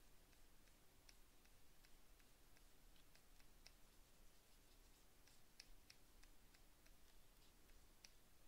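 Near silence: room tone with faint, irregular clicks, about two a second.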